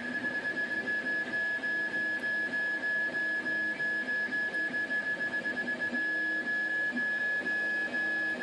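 Desktop FDM 3D printer filling in the first layer: its stepper motors whir in quick stop-start moves, several a second, as the print head travels back and forth, over a steady high-pitched tone.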